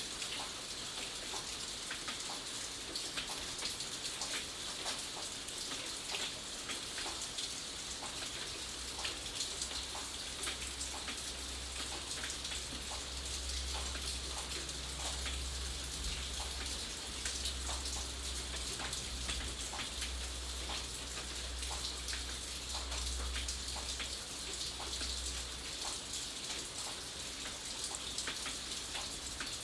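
Steady rain, with many individual drops ticking irregularly on a surface over an even hiss. A low rumble sits underneath from about eight seconds in until a few seconds before the end.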